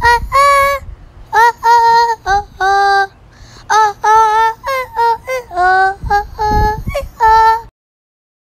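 A high voice singing a short tune as a string of short held notes, stopping shortly before the end.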